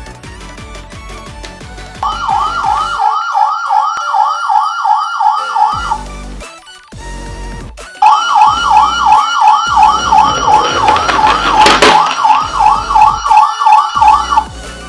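Electronic siren of a toy ambulance, a fast warbling rise-and-fall repeating about three times a second. It sounds for about four seconds, stops, then starts again for about six seconds, with a sharp click partway through the second run.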